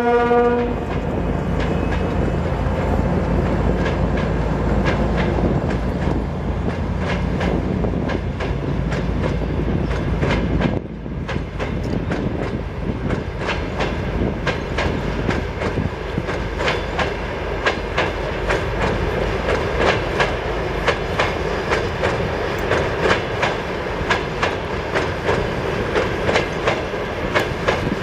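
A passenger train hauled by two 2M62 diesel locomotives passing. The tail of a locomotive horn blast ends within the first half second. A low diesel rumble then drops away abruptly about eleven seconds in, leaving the coaches' wheels clicking over the rail joints in a steady clickety-clack.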